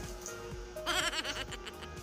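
Background music with steady held notes. About a second in, a brief, wavering sound rises over it, the loudest thing here.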